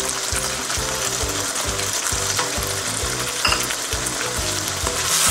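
Chicken pieces and tomato paste sizzling in hot oil in a wok, stirred with a wooden spatula.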